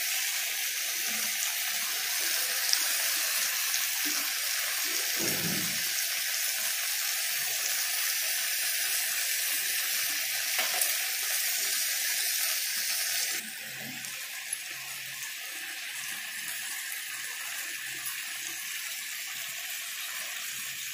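Tomatoes and powdered spices frying in hot oil in a black kadai: a steady sizzling hiss that drops suddenly in level about two-thirds of the way through.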